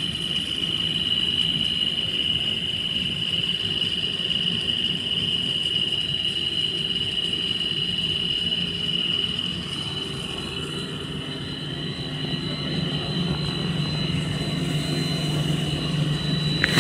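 Steady running drone of a twin-screw food extruder production line: a low motor hum under a high steady whine. The whine fades about halfway through, and a deeper hum grows near the end.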